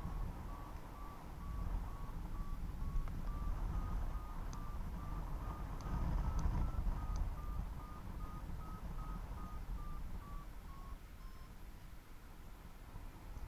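Paragliding variometer beeping about twice a second, its pitch creeping up around the middle and easing off again before the beeps stop about eleven seconds in: the climb tone of a glider rising in a thermal. Wind rushes over the microphone throughout.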